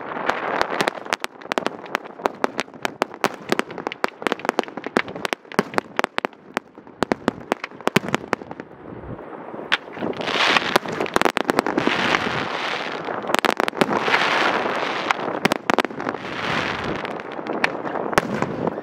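Professional fireworks display: rapid sharp cracks and bangs in close succession. From about ten seconds in, come long swells of dense crackling hiss, rising and fading four or five times.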